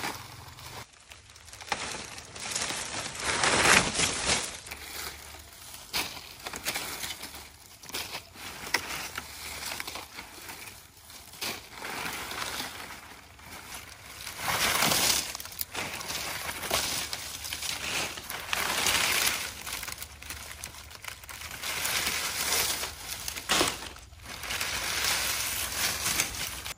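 Irregular rustling and crunching that swells and fades, loudest about four seconds in and again around fifteen seconds, with short sharp knocks in between.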